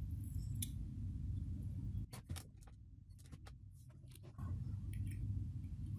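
A steady low hum, dipping quieter for about two seconds in the middle while a few light, sharp clicks sound.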